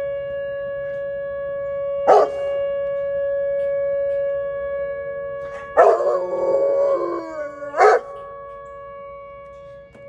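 A Rottweiler howls along with an outdoor tornado warning siren sounding its steady tone for the monthly test. There is a brief howl about two seconds in, a long howl with a bending pitch around six to seven seconds, and another brief howl near eight seconds. The siren fades over the last couple of seconds.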